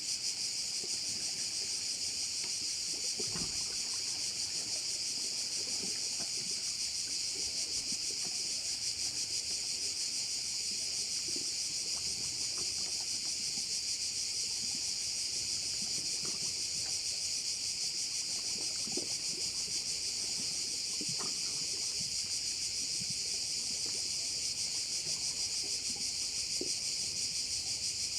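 Chorus of cicadas buzzing in a dense, unbroken high drone, with faint scattered soft knocks far below it.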